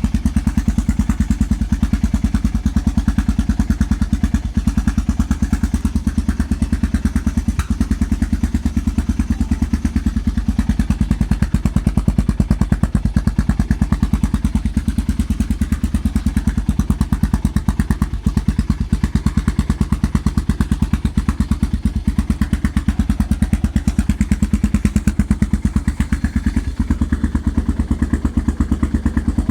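Yamaha XT single-cylinder four-stroke engine idling steadily through an aftermarket GPR exhaust with its dB killer removed: a loud, even beat of exhaust pulses.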